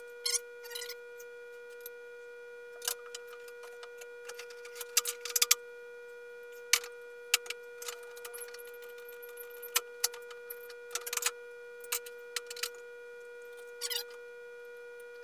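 Scattered sharp clicks, taps and knocks of wooden chair parts and tools being handled, over a steady high-pitched hum.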